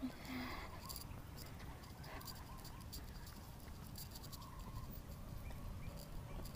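Faint outdoor background with scattered light ticks and scratches throughout.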